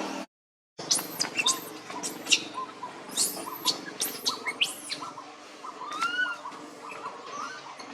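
A string of quick, very high-pitched squeaks and chirps, each rising and falling in pitch, with lower short chirps between them. The sound cuts out briefly just after the start, then the squeaks come thickly for a few seconds and thin out toward the end.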